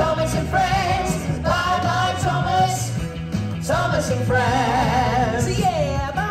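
Upbeat song with a singer's melody, held notes wavering, over a steady beat.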